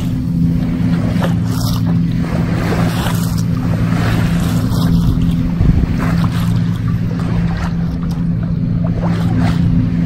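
Water rushing and splashing along the hull of a sailboat under way, with wind buffeting the microphone, over a steady low drone.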